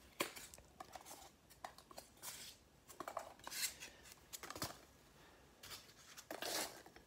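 Faint, scattered rustling and crinkling of packaging being handled, in a few short bursts with small clicks between them.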